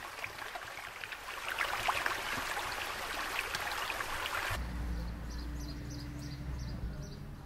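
Shallow stream running and babbling over rocks. About four and a half seconds in, it cuts to a different ambience: a low, steady hum with a run of short, high chirps.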